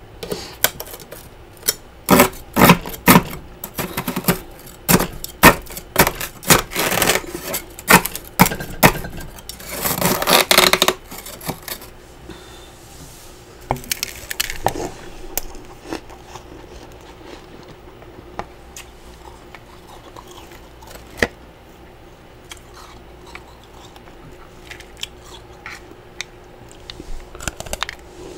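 A metal spatula scraping built-up frost off the inside of a freezer: a dense run of loud scrapes for about the first ten seconds. After that it goes much quieter, with scattered small crunches and clicks as the frost is eaten.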